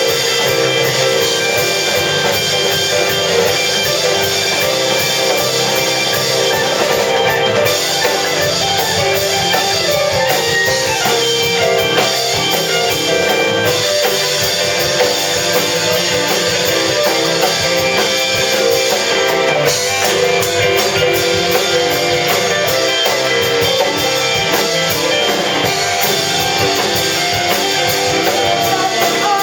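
Rock band music: guitars strumming over a drum kit, playing continuously at an even loudness.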